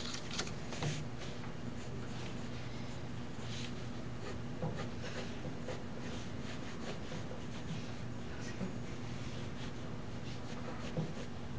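Pencil scratching on paper in short, repeated strokes as a figure is sketched, over a steady low hum.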